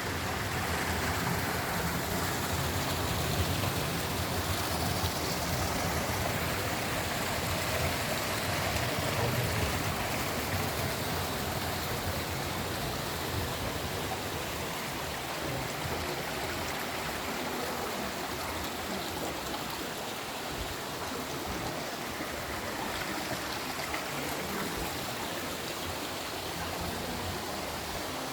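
Waterfall: a steady rush of falling, splashing water, a little louder and deeper for the first ten seconds or so.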